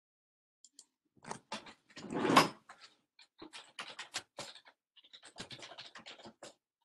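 Irregular clicks and scratchy rustling close to the microphone, with one louder rustling burst about two seconds in.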